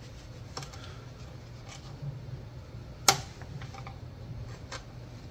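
A few small plastic clicks and taps as a 90-degree pick pries the locks off fuel injector electrical connectors, with one sharp, louder click about three seconds in. A steady low hum runs underneath.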